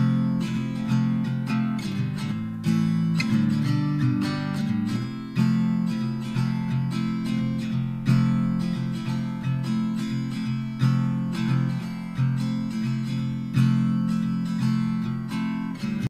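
Background music: acoustic guitar, strummed and plucked in a steady rhythm.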